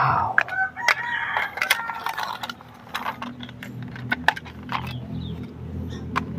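Hard plastic toy parts clicking, knocking and scraping as the shell pieces of a toy cow are handled and pressed together, with a low steady hum underneath from about halfway through.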